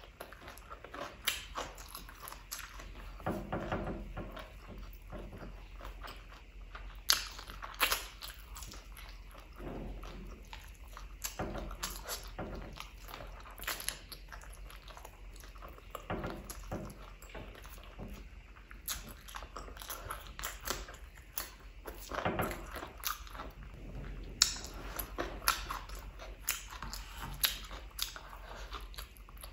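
Close-up eating sounds: chewing and wet lip-smacking while eating chicken curry with rice by hand, with many sharp mouth clicks spread irregularly throughout.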